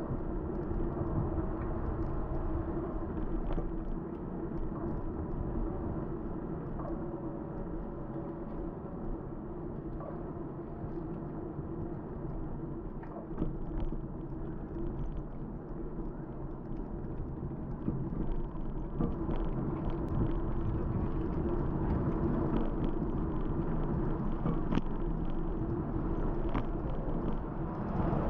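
Steady rumbling wind and road noise on a bicycle-mounted microphone while riding, with a constant low hum and a few faint clicks from the bike.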